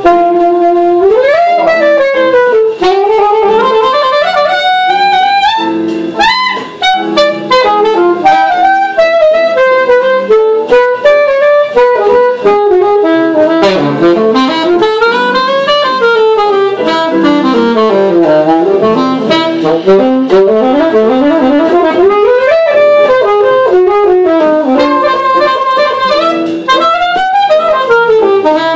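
Alto saxophone playing a fast improvised jazz line, with quick runs and swoops up and down in pitch.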